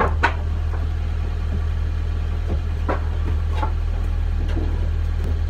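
Steady low rumble, like an engine idling, with a few scattered knocks of boots and loose boards on a wooden plank floor.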